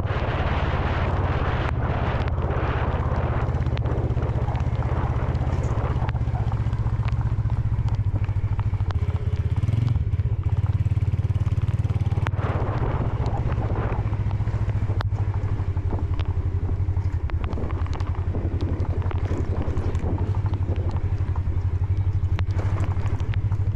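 Motorcycle engine running steadily at a constant pace, with a rushing noise of wind and road over it.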